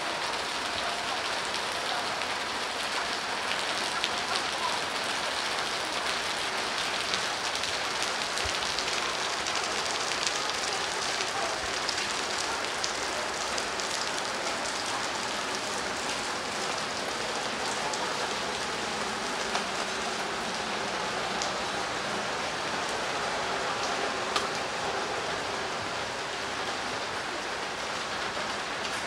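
Steady rain falling and spattering on surfaces: an even hiss dotted with many small, sharp drop ticks.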